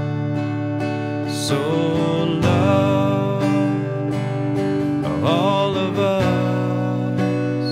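Acoustic guitar strummed in a steady rhythm, with a man singing a slow worship song over it.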